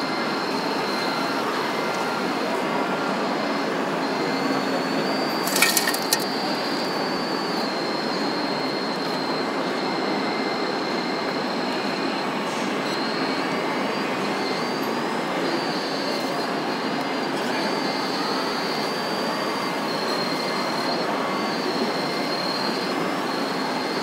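Steady high whine of a model hydraulic pump, wavering in pitch as the RC wheeled excavator works its boom and bucket, over an even background of machine noise. A sharp short clatter comes about six seconds in.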